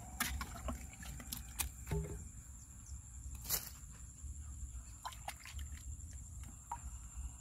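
Scattered scrapes, clicks and knocks of a stick and hands digging into a hole in cracked dry mud, with one sharper knock about three and a half seconds in.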